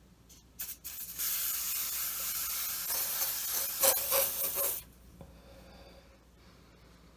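Preval aerosol spray sprayer misting body paint: two short spurts, then a steady hiss of about three and a half seconds that sputters loudest near its end and cuts off suddenly.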